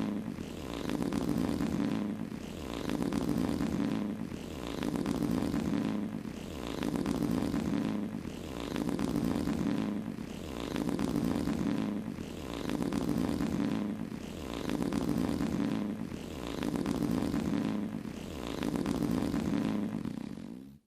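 A long, low, buzzing fart sound effect played over and over, each one swelling and fading about every two seconds, then cutting off suddenly at the end.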